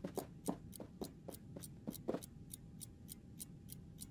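Quiet, steady ticking of a clock, about three ticks a second. Over the first two seconds there are soft padding steps of a cat's paws.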